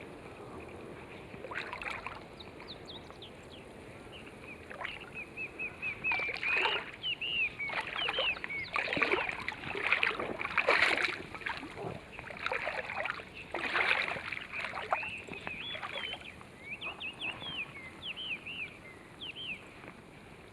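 Small birds chirping repeatedly in quick, rising and falling notes, with water sloshing and splashing in loud rushes through the middle of the stretch.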